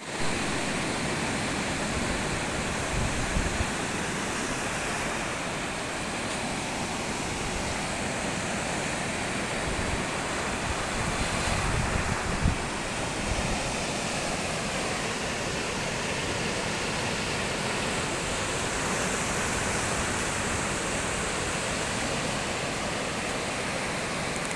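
Sea waves washing onto the shore in a steady rush, with occasional low bumps of wind on the microphone.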